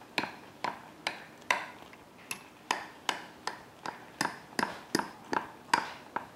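A metal fork repeatedly stabbing into a baked raisin pudding, its tines clicking against the bottom of the glass Pyrex baking dish, about two to three clicks a second. The cook is pricking holes all over so the sauce will soak in.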